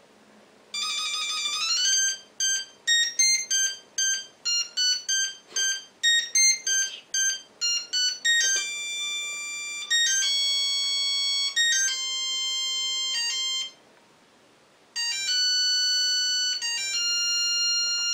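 Nixie clock's beeper playing an electronic tune of pure beep tones. It opens with a quick rising run and a string of short notes, then moves to longer held notes. It stops for about a second near the end, then starts again.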